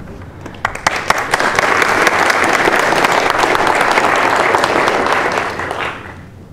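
Audience applauding: a few scattered claps that swell within a second into steady applause, which dies away near the end.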